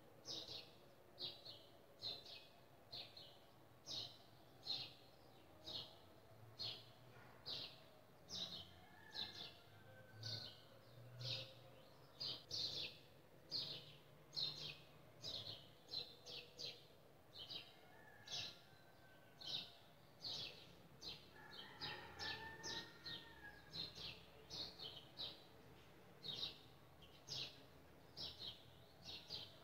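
A bird chirping faintly over and over, about two short chirps a second, with a few other faint calls now and then.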